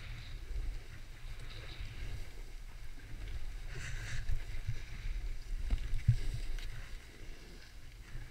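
Wind rumbling on the microphone while riding downhill, with the swishing hiss of a snowboard carving turns through powder snow. There are a couple of low thumps about six seconds in.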